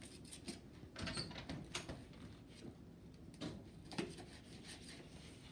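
Kitchen knife cutting through a dragon fruit on a plastic plate: faint, scattered scrapes and taps.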